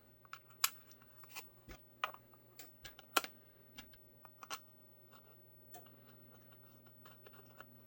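Scattered light clicks and taps of small screws, nuts and a claw attachment being handled and fitted to a holster, most of them in the first few seconds, over a faint steady hum.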